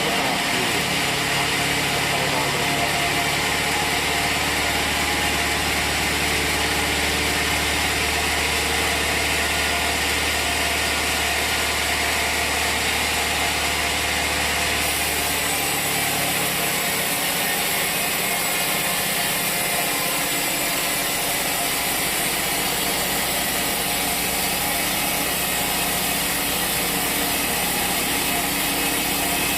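Sawmill machinery running steadily, with a change in its hum and hiss about halfway through.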